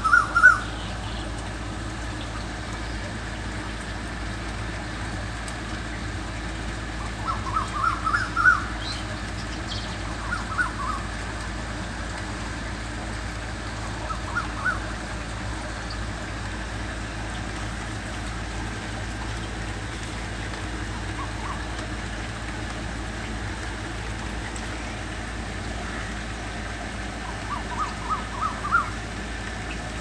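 A cuckoo calling: every few seconds a short run of quick notes climbing in pitch, heard about five times, over the steady hiss of rain falling on leaves.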